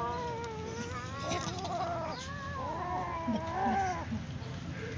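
Two kittens tussling over a piece of raw chicken, giving long, wavering cries that rise and fall in pitch. The two voices overlap about halfway through.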